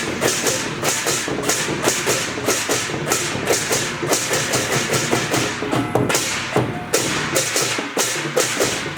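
Temple procession music: loud, busy percussion with many rapid overlapping strikes and a bright, shimmering top, running without a break.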